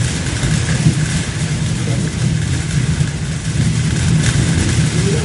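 A loud, steady, engine-like rumbling drone with a hiss above it.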